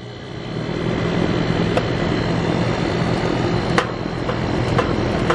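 Steady rushing hiss of R-410A-style refrigerant flowing through a condensing unit's service valve as it is opened with a ratchet wrench, bringing the evacuated line set and new coil back to positive pressure; the noise builds over the first second, then holds, with a few sharp clicks of the wrench.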